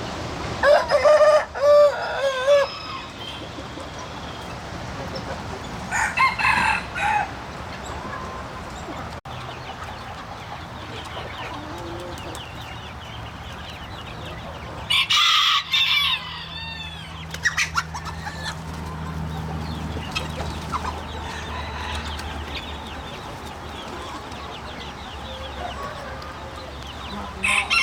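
A flock of chickens clucking and calling, with loud crowing calls about a second in, again around six seconds, and twice in the middle.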